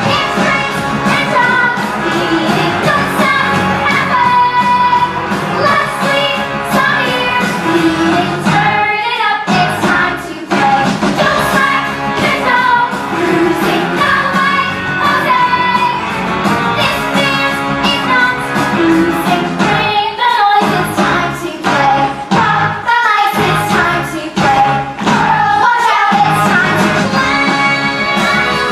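Song with a singing voice over a band with drums.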